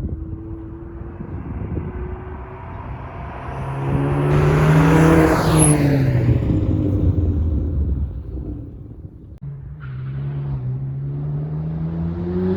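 Ford Focus ST's turbocharged 2.0-litre EcoBoost four-cylinder running through a Cobb exhaust and catless downpipe. The pitch rises under acceleration, then falls as the car eases off, dips briefly about nine seconds in, and climbs again as it pulls once more.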